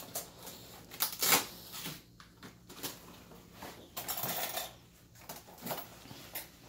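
Large banana leaves rustling and crackling as they are handled at a kitchen sink, with a few light knocks and clinks.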